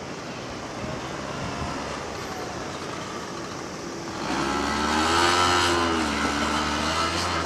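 A vehicle passes close by starting about four seconds in: a tone with several pitches over a steady low hum, rising slightly and then falling as it goes by.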